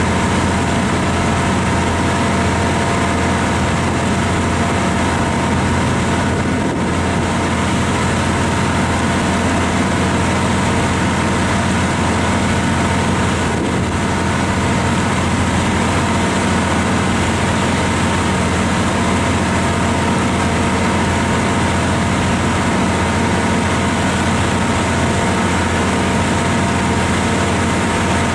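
Ferry's diesel engine running steadily, a constant drone with a steady hum, heard on board.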